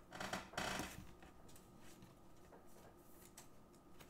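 Quiet handling of plastic card holders: a brief soft rustle within the first second, then only faint light taps and clicks.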